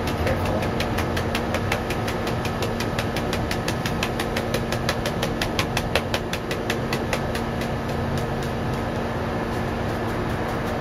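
A steady machine hum with a fast, regular ticking over it; the ticking fades out about two-thirds of the way through.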